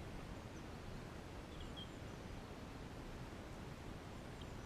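Faint steady outdoor background noise, an even hiss with no distinct source, with a faint short chirp about one and a half seconds in.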